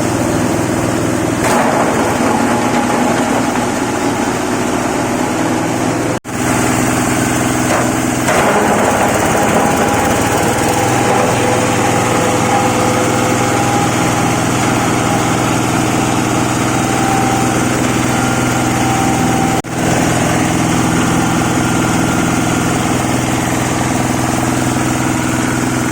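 Engine-driven coconut frond chopper running steadily. The sound drops out sharply twice, about six seconds in and again near twenty seconds, then picks up again.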